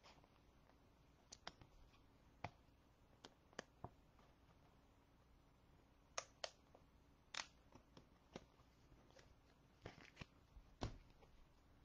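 Faint, irregular clicks and taps of football trading cards being handled and flipped through, over near silence; a few louder taps come in the second half.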